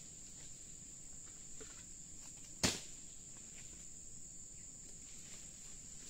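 A steady, high-pitched insect drone, with a single sharp knock about two and a half seconds in.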